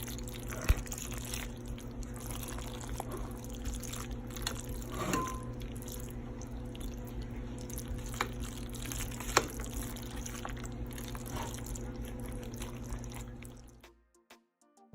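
Cooked macaroni being stirred together with shredded cheese: wet, sticky squelching with a few sharp clicks of the spoon against the dish, over a steady hum. It cuts off suddenly near the end.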